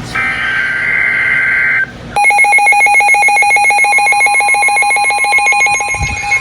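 Emergency Alert System signal: a burst of warbling SAME header data tones, then, about two seconds in, the EAS two-tone attention signal starts as a steady, harsh alarm tone. Together they announce an incoming alert.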